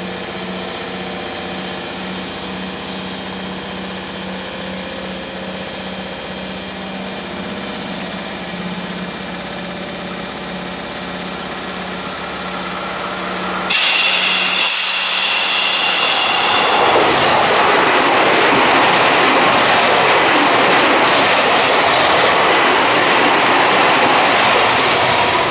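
Electric commuter trains passing trackside. For the first half a Tokyu 8500 series runs by with a steady hum. About 14 seconds in the sound jumps suddenly louder to a Tobu 50050 series passing close, its wheels rumbling on the rails, and a rising whine starts near the end.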